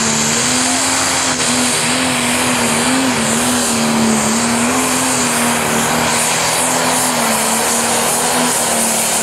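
Case IH MX285 Pro Stock pulling tractor's turbocharged diesel engine running flat out under full load as it drags the sled. It holds one steady, slightly wavering note over a loud, hissing blast of exhaust.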